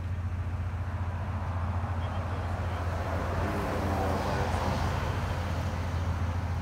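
A car engine running with a steady low hum, and a wash of road or traffic noise that swells and fades around the middle.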